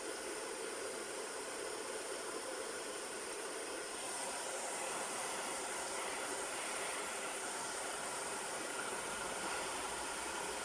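Hair dryer blowing steadily, a continuous even whoosh.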